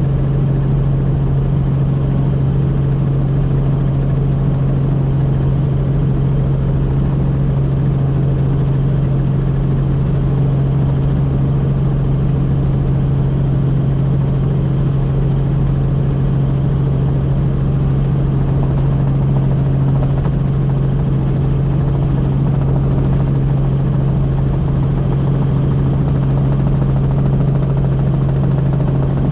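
Helicopter in flight: a steady, loud drone of engine and rotors with one strong, constant low hum.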